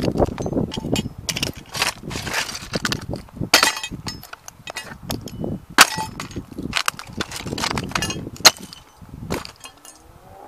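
Sneaker soles stomping and grinding a 1:18 scale model Ferrari into brick paving: a rapid run of sharp cracks and snaps as its red plastic parts break, with scraping and crunching of shards underfoot. Two cracks stand out as the loudest, about six seconds in and about eight and a half seconds in.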